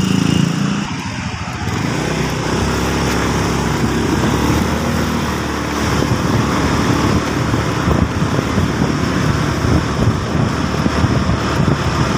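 Small engine of a moving motorcycle running steadily, with road and wind noise.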